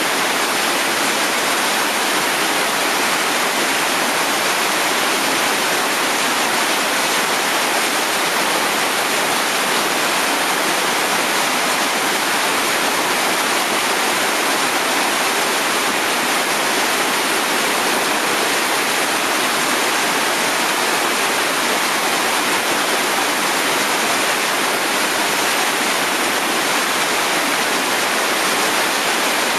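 Whitewater rapid rushing steadily, the churn of water pouring through a river hole.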